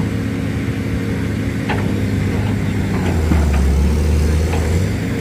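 Diesel engines of two hydraulic excavators, a Kobelco and a Cat, running steadily while they work together to lever the mired Cat machine out of the mud. About three seconds in, the engine sound gets deeper and louder for a second and a half as the machines take up load.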